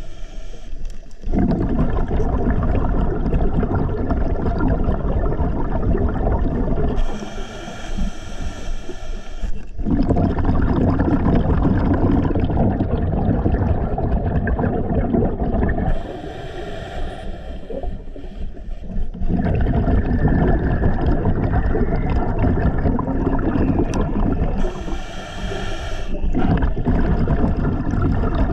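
Scuba diver breathing underwater through a regulator: three slow breaths, each a short hiss of inhaling followed by a long rumble of exhaled bubbles.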